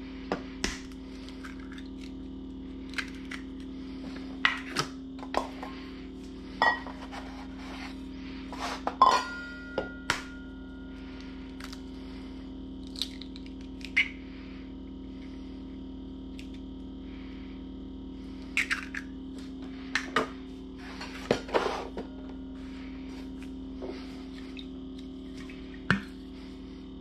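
Eggs being cracked against a stainless steel bowl and their shells pulled apart by hand: a scattering of sharp taps and clicks, with the metal bowl ringing briefly about nine seconds in. A steady low hum runs underneath.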